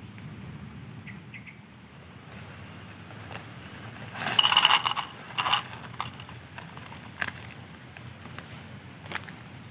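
A short burst of rustling with light clinking about four seconds in, a second burst just after, then a few scattered clicks.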